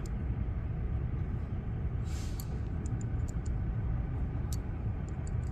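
A steady low rumble of background noise, with a brief hiss about two seconds in and a few faint, light clicks scattered through the middle as small metal parts of a throttle body spacer are worked by hand.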